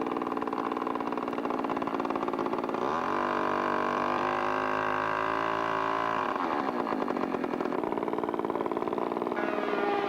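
Engine of a radio-controlled scale model airplane running in flight, a steady buzzing note that rises in pitch about three seconds in, holds, and drops back about six seconds in.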